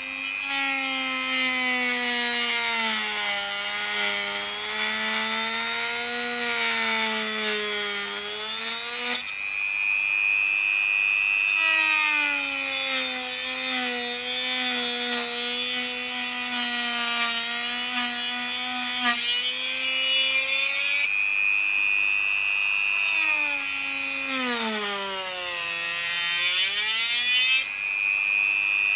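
Dremel rotary tool with a cut-off disc cutting into a DJI FPV drone's motor arm. Its motor whine sags in pitch as the disc bites and picks up again as the load eases, with a gritty rasp of cutting over it. Near the end the pitch dips sharply and then recovers.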